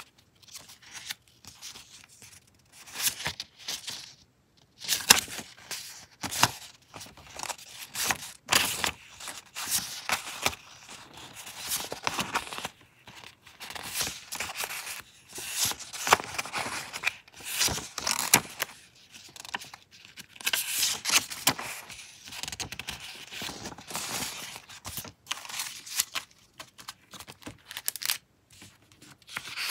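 Paper ephemera (tickets, cheque-style drafts and receipt slips) handled and flipped through by hand: an irregular run of crisp paper rustles, flicks and crinkles with short pauses between.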